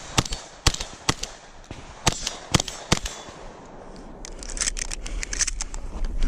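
Shotgun firing: sharp reports and clicks, about six in the first three seconds, then a quieter patch of rapid metallic clicking, with another loud report at the very end.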